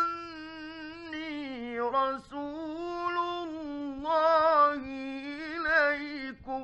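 Male Quran reciter chanting in the melodic mujawwad style. Long held notes slide up and down in drawn-out phrases, and the voice stops abruptly near the end. This is an old late-1950s radio studio recording.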